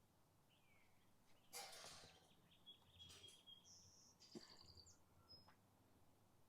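Faint birdsong: a few short, high chirps and a brief gliding note. A brief rustle about a second and a half in, and a shorter one past the middle, are the loudest sounds.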